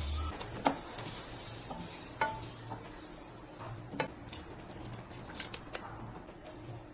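A utensil stirring food in a pan over a light sizzle, striking the pan with three sharp clinks and then several lighter taps.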